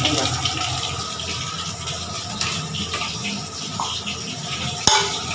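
Cumin seeds and bay leaves sizzling in hot oil in a kadai, a steady hiss of the tempering. A single sharp knock comes near the end.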